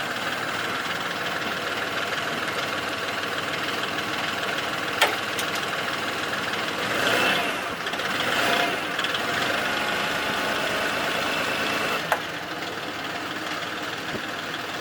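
Old Kubota tractor's diesel engine running, rising and falling twice in the middle as it takes the load of lifting a rock on its forks, a rock the owners say is too heavy for it. Two sharp clanks, about five and twelve seconds in.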